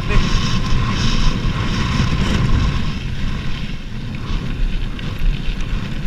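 Wind buffeting a handlebar-mounted camera's microphone over the rumble of gravel-bike tyres rolling on a dirt track, with a few faint clicks from the bike.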